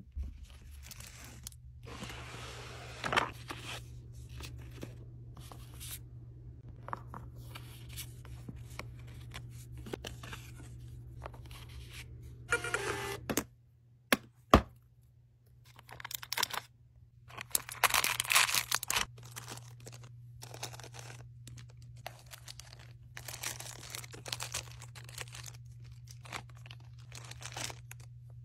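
Hands packing enamel pin orders: plastic bags and a bubble mailer rustling and crinkling, packaging tearing, and a plastic organizer box's latch clicking sharply, over a steady low hum.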